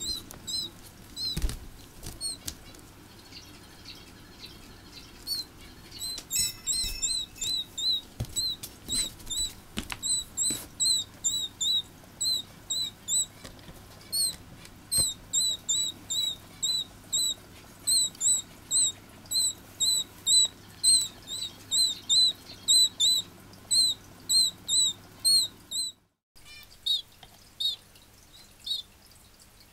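Young red canary chick giving a long run of short, high peeps, about two a second, the begging calls of a hand-fed chick; they start a few seconds in and grow louder and closer together through the middle. A few soft knocks and brief wing flutters come in among them.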